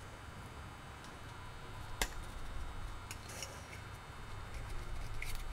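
Faint handling sounds of a steel fire axe head being worked onto its wooden handle by hand: a few light clicks and knocks, the clearest about two seconds in and a small cluster a second later, over a low steady room rumble.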